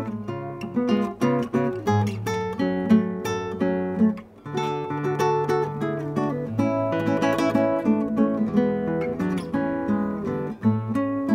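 Acoustic guitar played fingerstyle: plucked single notes and chords in a slow instrumental passage, with a brief gap about four seconds in.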